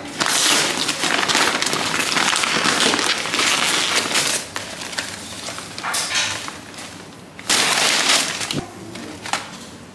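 Brown paper fast-food bags rustling and crinkling loudly as they are opened and a cardboard food box is pulled out. The rustling comes in spells: a long one in the first half, a short one past halfway, and another a little before the end.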